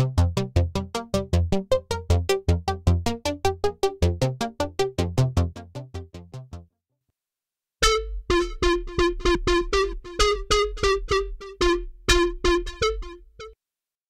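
KORG miniKORG 700S software synthesizer playing bass presets. First comes a fast repeating bass sequence through a phaser, which fades out about six and a half seconds in. After about a second of silence, the 'Clipper Bass' preset plays short staccato notes, about three a second, over a steady low drone.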